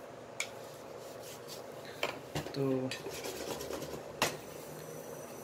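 Stainless steel saucepan being handled on a glass induction cooktop: three short metallic clicks and knocks, the last the loudest, over a faint steady hum.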